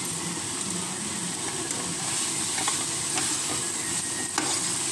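Double beans and soya chunks sizzling in a hot stainless steel pan while a steel spoon stirs them, with a steady frying hiss and a few sharp clicks of the spoon against the pan.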